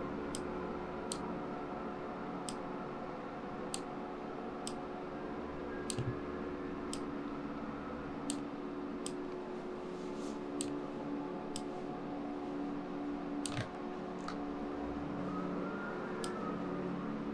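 Computer mouse clicking about once a second, sharp single clicks, over a steady low hum.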